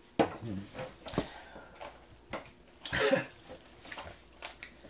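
A person coughing and clearing the throat a few times in short separate bursts, the loudest about three seconds in.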